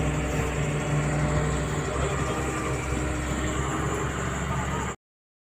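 A vehicle engine running steadily with a low hum over street noise, cutting off abruptly about five seconds in.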